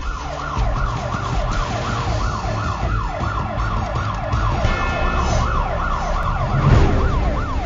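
Emergency vehicle siren in a fast yelp, its pitch sweeping up and down about three times a second, over a low rumble that swells near the end.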